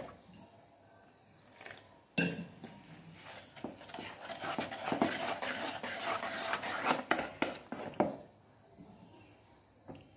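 A spatula stirring and scraping cake batter in a plastic bowl: a run of quick repeated strokes that starts about two seconds in and stops about eight seconds in.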